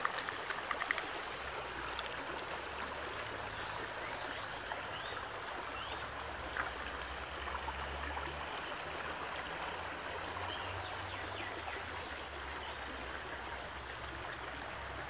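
Shallow stream running over a rocky bed: a steady rush of water, with a few faint clicks in the first second.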